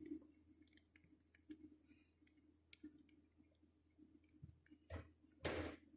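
Near silence under a faint low hum, with scattered soft clicks and a brief, louder noise about five and a half seconds in.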